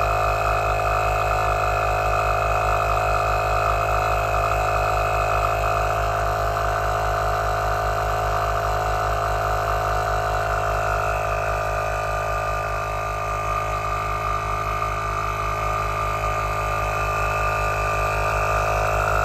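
Heyner Big Air 40L 12V piston air compressor running steadily under load while topping up a van tyre toward 3.5 bar (50 psi). Its steady drone carries a fast, even pulse from the piston strokes.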